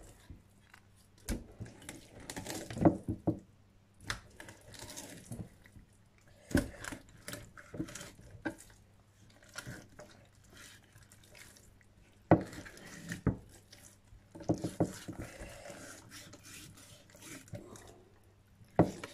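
Knife cutting and scraping along a large salmon as it is filleted: wet slicing and scraping noises that come and go, with a sharp knock now and then.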